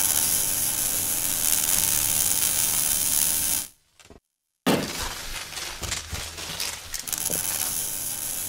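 Logo-reveal sound effects: a steady bright hiss for about three and a half seconds fades out, then after a short gap a sudden hit is followed by dense crackling and clicking, like a mechanism or breaking glass.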